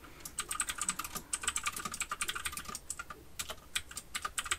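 Typing on a computer keyboard: a quick run of key clicks for about three seconds, then a few more scattered keystrokes near the end.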